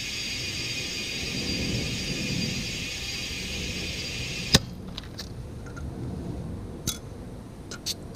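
Compressed air hissing steadily through an air chuck into a car tire, cut off by a sharp click a bit over halfway through. A few light clicks and taps follow.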